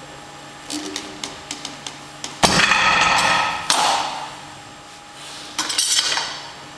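Iron weight plates on a Rolling Thunder grip-handle loading pin come down onto the plate stack about two and a half seconds in: a loud metallic clang that rings for over a second, with a second knock soon after. Light ticks of metal come before it, and a quick clinking of plates being handled comes near the end.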